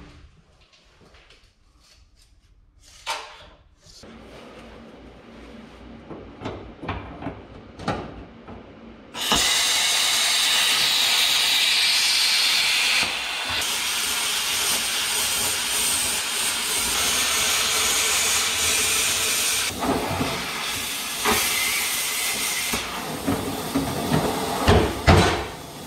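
Plasma cutter torch cutting a circular hole through sheet-steel car body panel. First come light clicks and knocks as the torch is set in its guide. About nine seconds in the cut starts with a sudden loud, steady hiss that runs for about fifteen seconds, then gives way to scraping knocks near the end.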